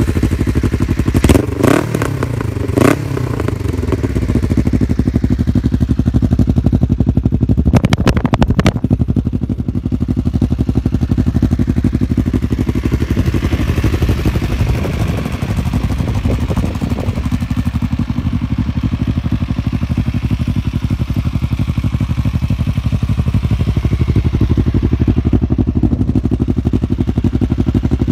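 Kawasaki ER-5's parallel-twin engine running through a Hawk aftermarket silencer with its baffle removed, giving a loud, open exhaust note. The throttle is blipped a few times in the first three seconds and once more about eight seconds in, then the engine settles to a steady idle.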